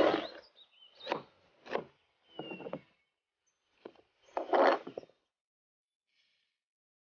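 A cleaver cutting through watermelon at the start, followed by a few short knocks and scrapes of the slices being handled, and a half-second grainy rush about four and a half seconds in.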